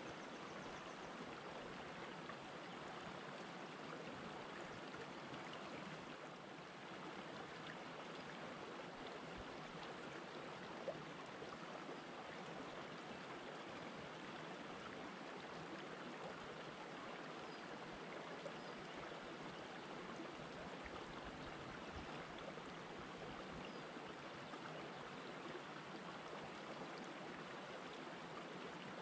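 Shallow rocky river flowing steadily over and between boulders: an even, unbroken rush of water. One brief click comes about eleven seconds in.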